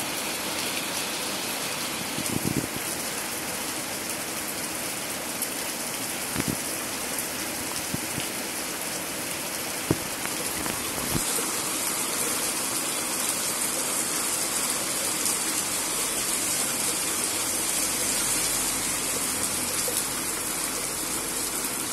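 Typhoon rain falling steadily, getting heavier about halfway through, with a few short knocks.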